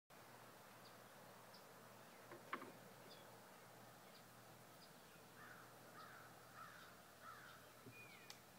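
Faint birds calling: scattered short high chirps, and a run of four harsher calls in the middle, about two a second. A single sharp click about two and a half seconds in is the loudest sound.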